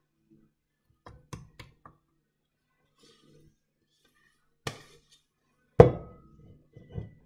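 A spatula scraping and knocking against a stainless steel mixing bowl as thick batter is scraped out. A few light clicks come first, then a knock, then a loud thunk with a brief metallic ring, and a smaller thump near the end.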